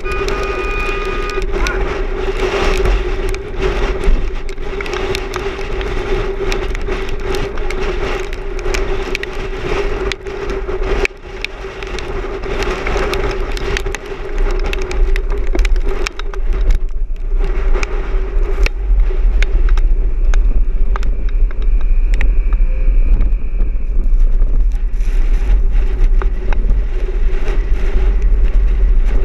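A vehicle on the move: a steady drone of engine and road noise over a heavy low rumble, peppered with sharp clicks and crackles. It grows louder from about halfway through.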